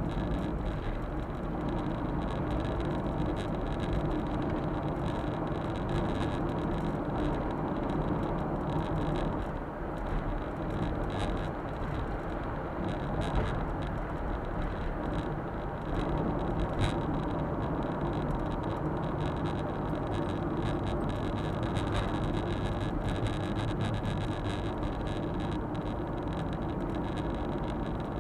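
Suzuki Super Carry kei truck driving along, heard from inside the cab through a dashcam: a steady drone of engine and tyre noise.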